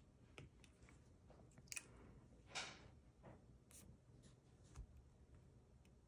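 Near silence in a small room, with a few faint taps of fingers and a stylus on a tablet's glass screen and one brief soft swish about two and a half seconds in.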